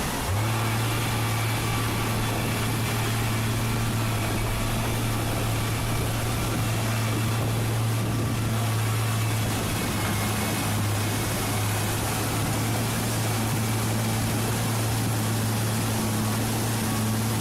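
Large engine running at a steady speed: a constant low hum over a steady hiss.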